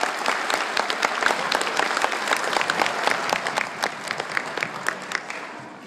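Audience applauding: a dense patter of hand claps that thins out and fades away near the end.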